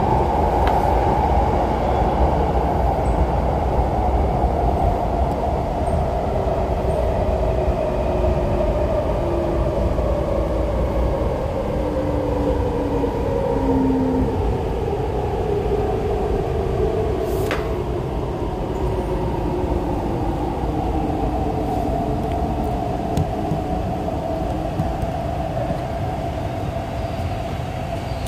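MTR East Rail line R-Train electric multiple unit running on the track, with a steady rumble of wheels on rail. Its traction motor whine glides slowly down in pitch as the train slows. There is a single click about two-thirds of the way through.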